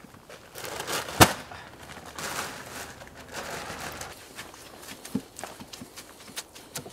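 Rustling and footstep-like crunching on forest ground, with one sharp, loud snap about a second in and scattered light clicks and crackles in the later seconds.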